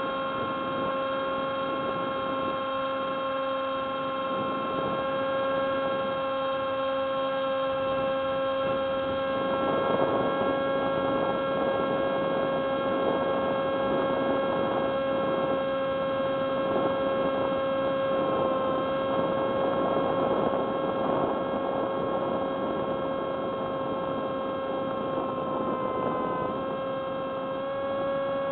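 Hubsan SpyHawk RC plane's electric motor and propeller running in flight, heard through its onboard camera: a steady high-pitched whine over a rush of air that swells in the middle. The whine dips slightly in pitch near the end.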